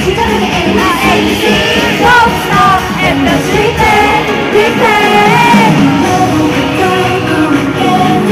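Loud live K-pop music over an arena sound system, with the girl group singing over the backing track, as heard from the audience.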